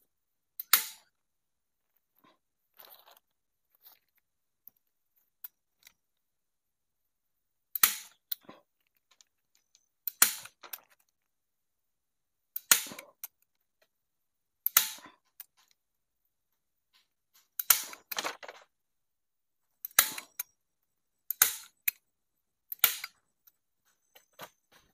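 A series of sharp knocks, about nine of them, spaced two to three seconds apart, each followed by a short ringing tail, with faint small handling sounds between them.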